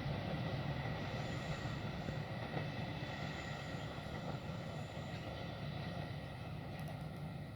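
Passenger train rumbling past and moving away: a steady low rumble that slowly gets quieter.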